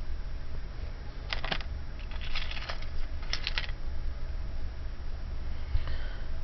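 Metal jewelry pieces clicking and clinking together as they are handled, in three short clusters of clicks, over a steady low hum.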